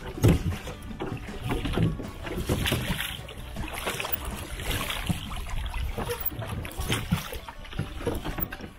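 A small rowboat being rowed on a lake: oars pulling through the water with splashing and water slapping against the hull.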